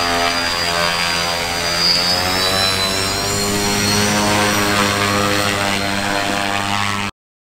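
Propeller engine running on a homemade ultralight airplane fuselage as it taxis, a steady drone with a high whine that wavers slightly. It cuts off suddenly near the end.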